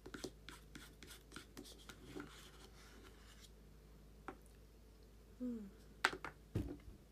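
Faint scattered light taps and rubbing, with a short hummed 'mm' falling in pitch about five and a half seconds in and a few sharper clicks just after.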